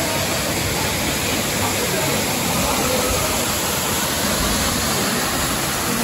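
Steady, even rush of a waterfall pouring into a rock pool.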